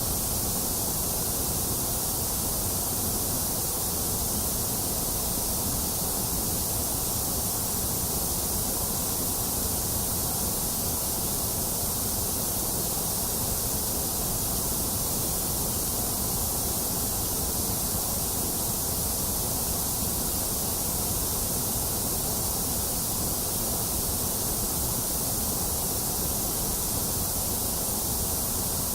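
Continuous generated white noise, an even hiss that stays steady and unchanging throughout.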